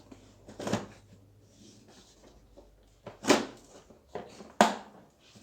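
Hard parts knocking and clattering against each other three times: once about a second in, then twice more in the second half, as the opened vacuum cleaner housing and its switch parts are handled with tools.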